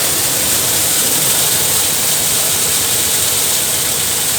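Waterfall rushing: a loud, steady roar of falling water with a bright hiss.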